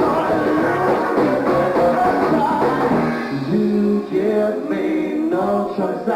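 Live R&B band playing, with sung vocals.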